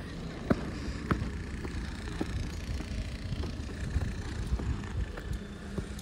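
Footsteps on a concrete walkway, short sharp knocks about every half second, over a low steady rumble.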